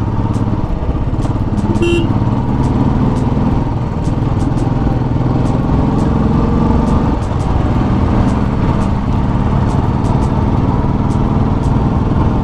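Royal Enfield motorcycle engine running steadily as the bike is ridden, with a brief beep about two seconds in.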